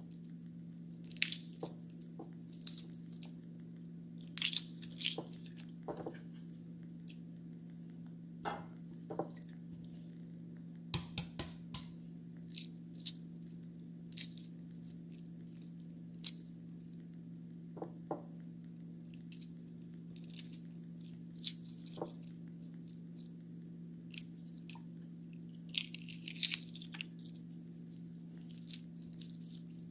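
Hard-boiled eggshell crackling and snapping in short, irregular clicks as the egg is peeled by hand, over a steady low hum.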